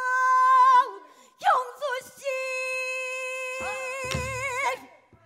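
Female pansori singer wailing two long held notes in the sorrowful gyemyeonjo mode, the second with a wide vibrato near its end. A low stroke on the buk drum comes about four seconds in.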